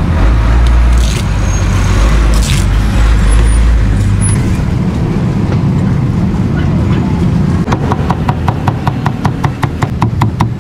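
Low rumble of street traffic, then, about three-quarters of the way in, a meat cleaver starts chopping roast pork belly on a wooden chopping block: fast, even chops of about five a second.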